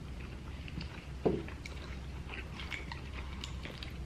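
Close-miked chewing of a prawn: small wet mouth clicks and smacks, with one brief louder mouth sound about a second in, over a low steady hum.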